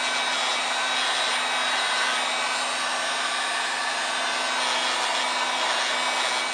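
Industrial heat gun blowing steadily, heating tint film on car window glass to soften the adhesive so it peels off without leaving glue; it cuts off near the end.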